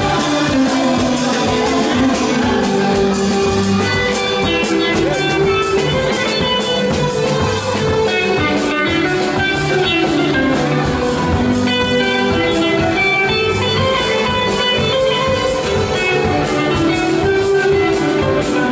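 Loud dance music with a plucked guitar melody over a steady beat.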